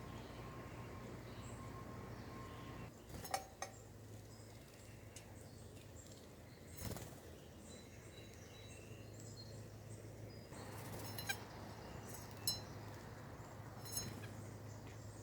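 A few short sharp clinks and taps at a bird feeder, over faint high bird chirps and a steady low hum.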